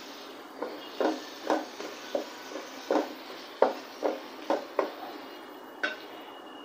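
Wooden spatula stirring diced potatoes and tomatoes frying in oil in a metal pot: about a dozen irregular knocks and scrapes of the spatula against the pot over a faint steady sizzle.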